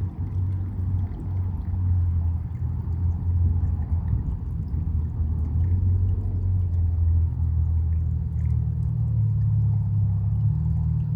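Running water flowing steadily, heard mostly as a loud, low rumble.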